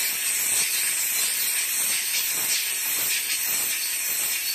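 Handheld steam cleaner firing a steady, loud hissing jet of steam onto the base of a hookah shaft to clean it.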